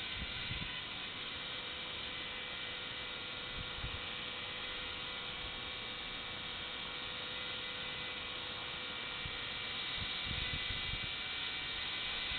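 HK 250 GT electric RC helicopter hovering: a steady whine of its small electric motor, gears and spinning rotor blades, growing slightly louder near the end. A few brief low thumps come through underneath.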